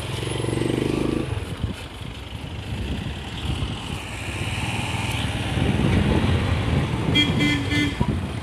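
Motor vehicle engine running at idle, with a vehicle horn giving a quick run of short beeps about seven seconds in.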